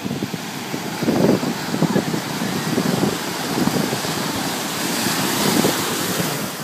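Small waves breaking and washing in over sand in shallow water, with wind buffeting the microphone. The hiss of the wash grows louder around five seconds in.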